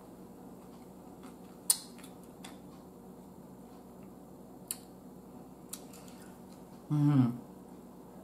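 Quiet eating sounds of a person chewing chopped salad: a sharp click about two seconds in and a couple of fainter ticks, then a short hummed "mm" falling in pitch near the end.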